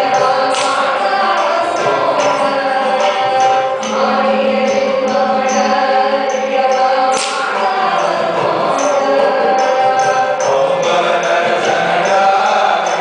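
Live Carnatic music accompanying Bharatanatyam dance: a sung melody over instrumental accompaniment, with short, sharp percussion strikes recurring throughout.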